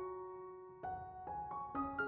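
Gentle background piano music: a held note fading, then new notes struck one after another about a second in.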